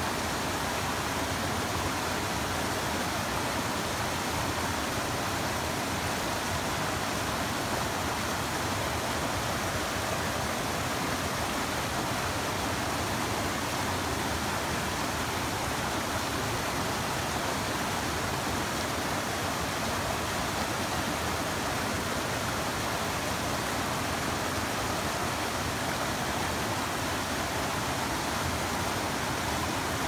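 A small mountain stream rushing and splashing steadily over rocks in a constant, even roar of water.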